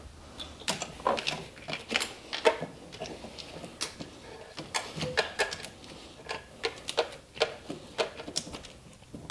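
Irregular plastic clicks and small knocks of engine-bay wiring connectors and harness being worked loose by hand, stubborn connectors that don't want to come apart.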